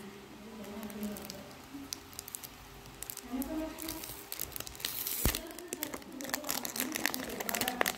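Clear plastic wrapping crinkling and tearing as it is peeled off a mirror cube, a run of small crackles that gets busier near the end, with one sharp snap about five seconds in.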